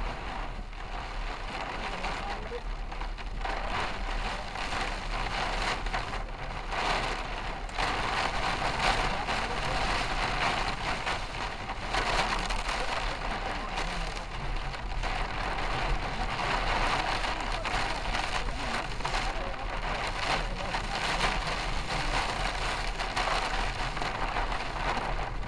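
Steady rain falling on a moving vehicle, a rushing hiss that swells and eases, over a constant low road hum.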